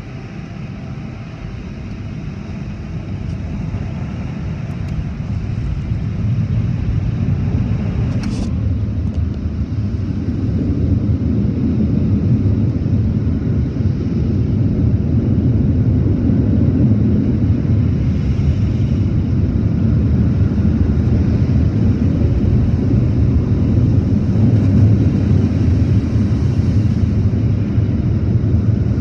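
Automatic tunnel car wash machinery heard from inside the car: a loud, steady, low rumble that builds over the first ten seconds and then holds. A short sharp sound about eight seconds in.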